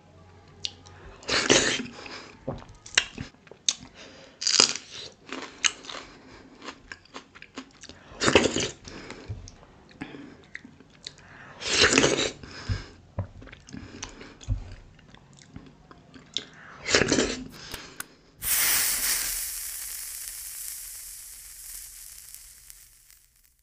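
Close-miked eating of dhido with sisnu nettle soup by hand: wet squishing of the soft dough and soupy greens and chewing, with louder bites every few seconds. About 18 seconds in, a sudden loud hissing swoosh sound effect with the logo, fading away over about five seconds.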